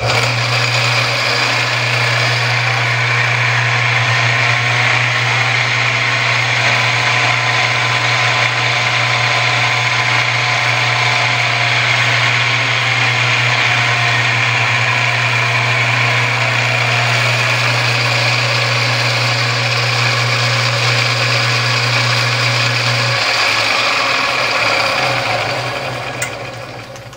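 Lathe motor and continuously variable-speed belt drive running steadily, a deep hum under a whirring belt, with faint tones shifting in pitch in the middle as the speed is varied. About 23 s in the hum stops and the sound dies away as the drive runs down.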